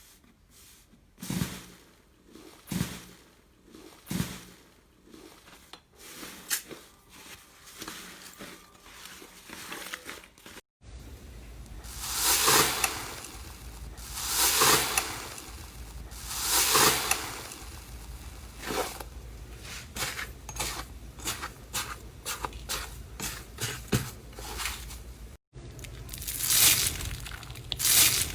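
Slime being squeezed and pressed by hand, giving wet squishes and crackles. Three separate pokes come first, then heavier presses about every two seconds, then quick runs of small pops and crackles.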